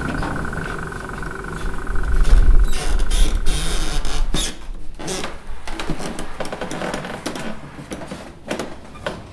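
Mechanical noise: a steady hum with a high tone, a loud low rumble from about two to four and a half seconds in, then a run of irregular clacks and knocks.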